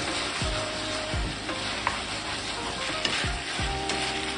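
Eggplant, pork and green pepper sizzling in teriyaki sauce in a frying pan as a wooden spatula stirs them, knocking and scraping against the pan about every half second.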